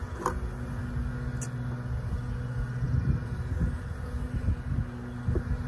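Steady low hum of a package of honeybees buzzing, agitated as the package is opened, over a low wind rumble. Two short clicks come from the hive tool prying at the feeder can, about a third of a second and a second and a half in.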